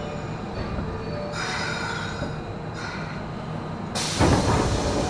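Interior running sound of an Osaka Municipal Subway Series 10 train car: a steady rumble of wheels and running gear with faint whining tones and some wheel squeal. A hiss comes in and fades in the middle, and the sound swells suddenly and gets louder about four seconds in.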